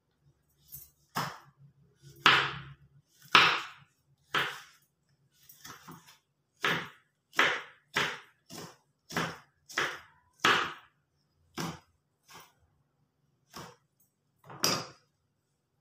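Kitchen knife chopping red chilli on a wooden cutting board: separate knocks of the blade against the board, roughly one a second at an uneven pace.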